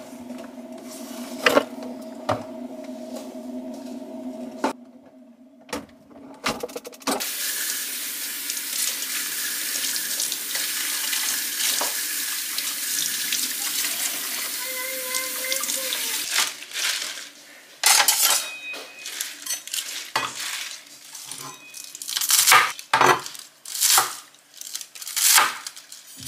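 Kitchen work: a few light clinks of a metal pot over a faint steady hum, then tap water running into a steel sink over a bunch of leafy greens for about nine seconds, then a kitchen knife chopping the greens on a cutting board in irregular strokes.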